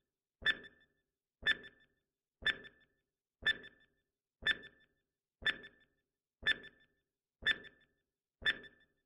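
Countdown timer sound effect: a short sharp tick with a brief ringing tail, repeated once a second, about nine times.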